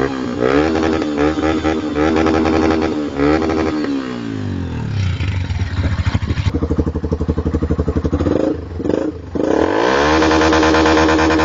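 Yamaha Fazer 150 single-cylinder four-stroke engine through an aftermarket exhaust, revved hard in quick repeated blips, dropping back to a pulsing idle in the middle, then revved up again and held high near the end.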